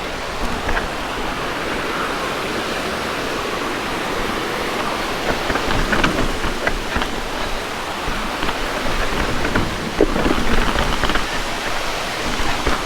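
Waterfall water rushing as a steady hiss, with scattered knocks and rattles of a mountain bike rolling over wet rock.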